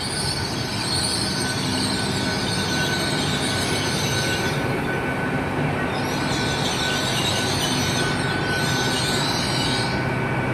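Great Western Railway Class 800 bi-mode train rolling slowly into the platform, its coaches passing close by with a steady running rumble. A faint, thin steady squeal sits over it.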